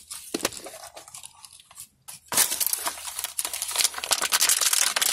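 Crinkly plastic wrapping of a Pikmi Pops surprise case being handled and pulled open, with a few sharp plastic clicks at first, then steady crinkling from about halfway in.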